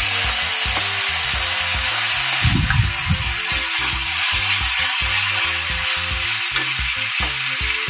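Ground spice paste frying in hot mustard oil in a kadai: a loud, steady sizzle as the wet paste hits the oil, stirred around with a spatula.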